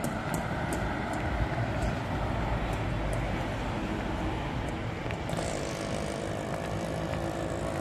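Steady road traffic on a city flyover: a continuous rumble of passing vehicle engines and tyres.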